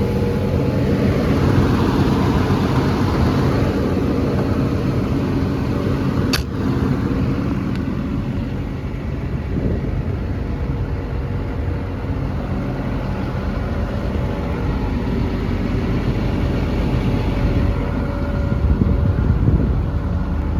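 Cummins diesel engine of an XCMG XE210CU hydraulic excavator running steadily, with a single sharp click about six seconds in.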